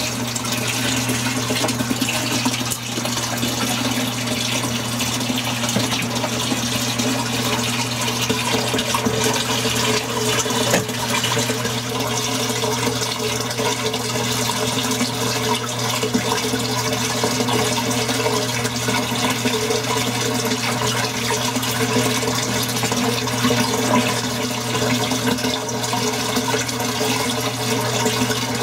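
Steady rush of running water in the turtle tank, with a constant low hum under it.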